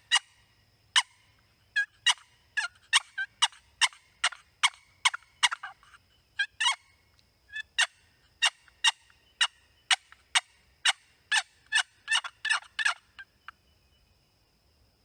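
Turkey calling: a long run of sharp, short yelps and cutts, about two to three notes a second, that stops near the end. A faint steady high-pitched insect drone runs underneath.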